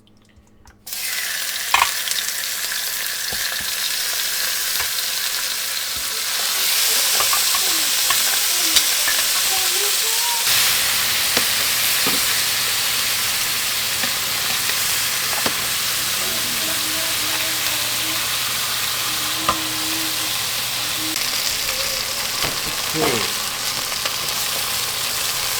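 Seasoned chicken pieces sizzling as they brown in hot oil in a pot. The sizzle starts suddenly about a second in, when the chicken goes into the pot, and runs steadily with a few sharp knocks of a utensil.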